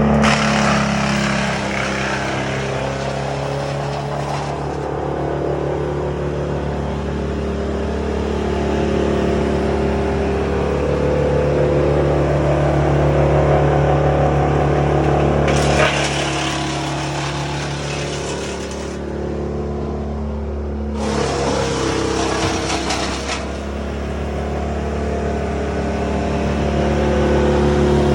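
An engine running steadily, with two stretches of louder noise about two-thirds of the way through, each lasting two to three seconds.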